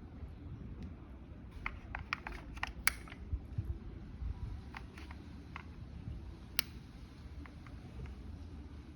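Small, irregular clicks and handling noises from a metal 1911 airsoft pistol being handled, with a sharper click about three seconds in and another past six and a half seconds.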